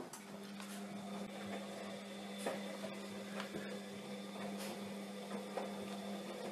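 A steady low electrical hum, like a household appliance running, starting just after the beginning, with faint scattered clicks and rustles over it.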